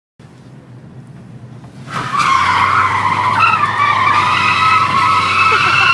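Car running quietly, heard from inside the cabin, then about two seconds in its tyres break into a loud, steady squeal as the car slides sideways in a drift.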